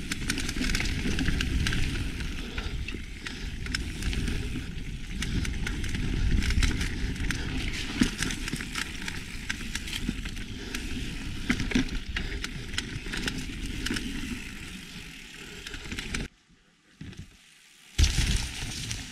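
Mountain bike ridden fast down a leaf-covered dirt trail: heavy wind noise on the microphone, with tyres running over dry leaves and twigs and the bike rattling in many sharp clicks. About three-quarters of the way through it cuts off abruptly to near silence, then comes back in a short, loud burst of riding noise.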